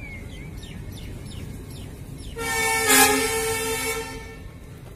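Locomotive horn sounding one steady blast of about two seconds, starting a little over two seconds in, over low platform noise.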